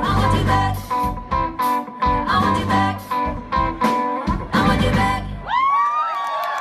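Music with guitar over a steady beat; near the end the beat stops and one note glides up and is held.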